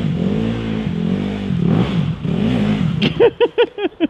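Enduro dirt bike engine revving up and down unevenly as it is ridden slowly over rocks and roots. It drops away about three seconds in, and a person laughs in quick bursts near the end.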